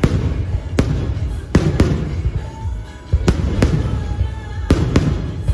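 Aerial firework shells bursting overhead: about eight sharp bangs, several in quick pairs, over a continuous low rumble. Music plays underneath.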